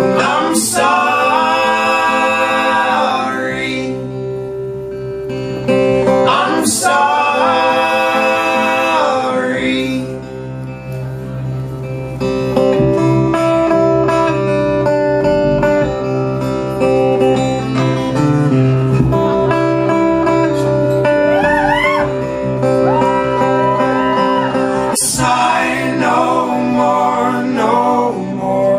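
Live folk-rock band playing: acoustic guitar with several voices singing long held notes in harmony, in phrases that come and go, with a few sharp strikes along the way.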